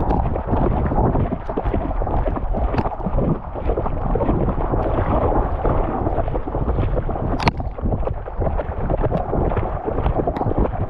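Water rushing and sloshing, with wind buffeting a GoPro that a dog is wearing on a river. There is one sharp click about seven and a half seconds in.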